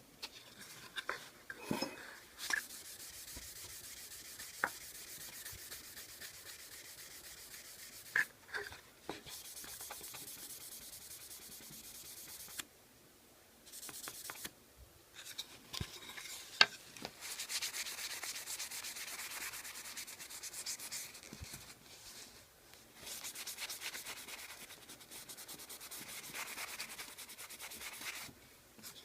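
Hand rubbing on a wooden case: a scratchy hiss in stretches of a few seconds, broken by short pauses and a few sharp clicks, the loudest about halfway through.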